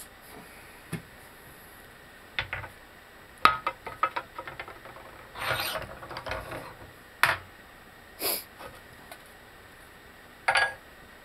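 Metal tools and parts being handled: scattered clinks and knocks with short stretches of scraping and rubbing, the sharpest knock about three and a half seconds in.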